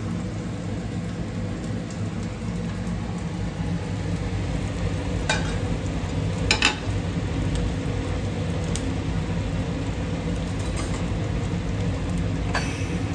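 Beaten egg mixture with onion and chili sizzling as it fries in mustard oil in a small pan on a gas burner. A steady low hum runs under it, and a few short clinks come midway and near the end.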